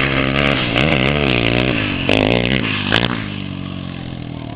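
ATV engine revving up and down in quick throttle swings, with a few sharp clicks mixed in. It then settles to a lower, steadier note that fades away near the end.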